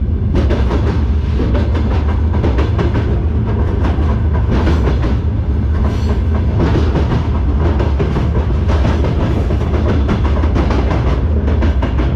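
Freight train under way, heard from the platform between covered hopper wagons: a loud, steady rumble of wheels on rail with constant rattling and clicking of the wagon's running gear and fittings.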